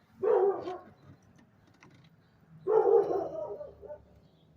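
A dog barking twice, about two and a half seconds apart.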